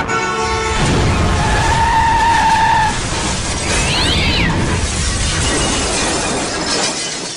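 A loud, sustained crash noise, rumbling and crashing throughout and dying away near the end. A short tone sounds about two seconds in and a brief falling squeal about four seconds in, with music underneath.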